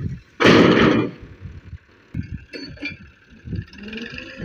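Massey Ferguson 240's three-cylinder diesel engine running, its pitch rising near the end as the tractor takes up load. About half a second in, a loud rush of noise lasts about half a second, and irregular low thumps come and go.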